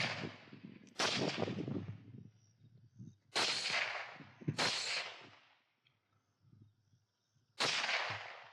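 Four rifle shots fired at hogs, unevenly spaced, each trailing off over about a second: two close together about three seconds in and a last one near the end.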